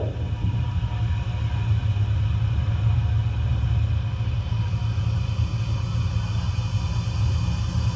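Demolition derby car's engine idling, a steady low rumble heard from inside the stripped cabin.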